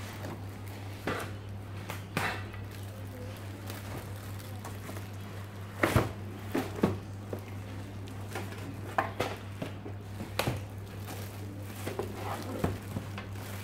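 Cardboard box and clear plastic wrapping rustling and crackling as a boxed exhaust fan is handled and slid out, with scattered light knocks; the sharpest crackles come about six and seven seconds in. A steady low hum runs underneath.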